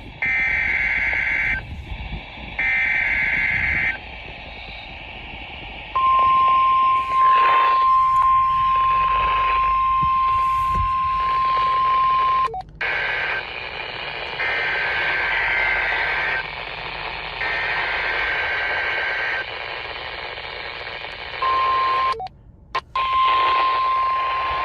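NOAA Weather Radio emergency alert over a hissing radio receiver. It opens with the last two bursts of a SAME digital header, warbling data tones sent in roughly one-second blasts. A steady 1050 Hz warning alarm tone follows for about six seconds. After a short dropout, another SAME header goes out three times, and the 1050 Hz tone starts again near the end with a brief break in it.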